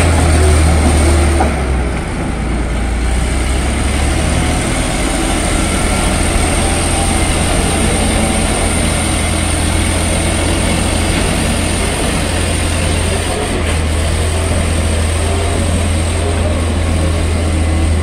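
Caterpillar D7G bulldozer's six-cylinder diesel engine running under load, a steady heavy drone, as the crawler moves through mud.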